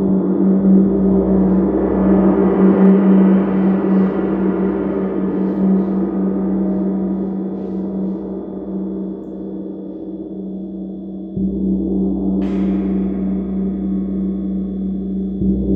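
A gong ringing in a long, shimmering wash of overlapping tones that swells and slowly fades. About eleven seconds in it is played again, with a sharp, bright strike a second later.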